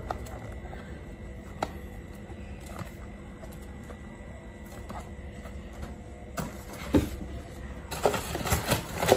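Cardboard packaging being handled: a few light taps and scrapes as a boxed product is turned in the hands, then crackling and rustling of a corrugated shipping carton being pulled open, louder for the last few seconds.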